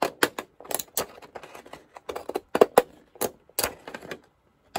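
Decorative edging scissors with zigzag and scalloped blades snipping repeatedly through a paper card: a quick, irregular run of crisp snipping clicks.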